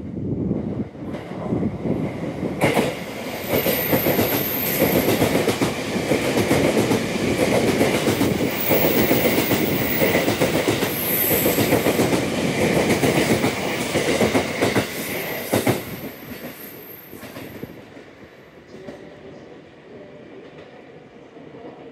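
E257 series limited express electric train passing through the station at speed, its wheels clattering over the rail joints with a few brief high squeals. The noise drops away about three-quarters of the way through as the train moves off.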